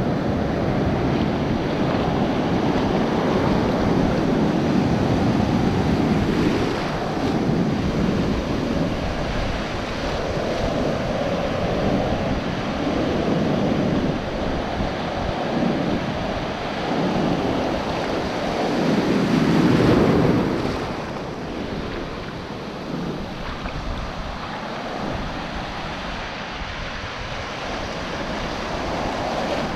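Ocean surf washing around a GoPro in the shallows, in repeated swelling and ebbing surges, with wind buffeting the microphone. The biggest surge comes about twenty seconds in, and the wash is quieter after it.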